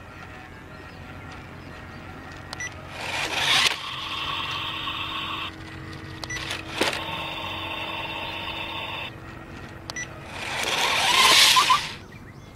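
Small electric motor of an HC-801 RC stunt motorcycle whining steadily in two spells, about four to five and a half seconds and seven to nine seconds in. Loud rushing bursts come around three seconds and again near eleven seconds in, with a sharp knock near seven seconds.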